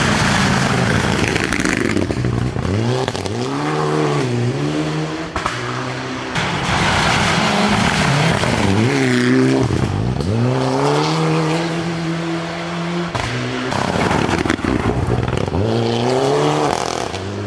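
Rally cars driven flat out on a gravel stage, engines revving hard through the gears. On several passes the engine note climbs, drops sharply at each gear change and climbs again, over the hiss of tyres on loose gravel.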